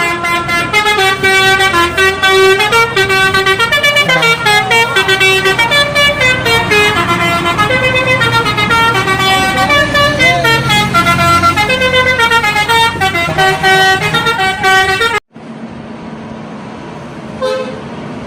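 Bus telolet horn playing a quick melody of stepped multi-tone notes, going on for about fifteen seconds, then cut off abruptly. After the cut it is much quieter, with a few faint horn notes near the end.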